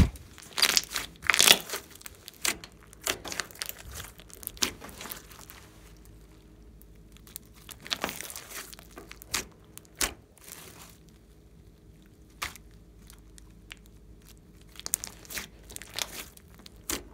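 Hands kneading and stretching a large mass of glossy slime mixed with clay, giving irregular sticky crackles and pops as it folds and tears apart.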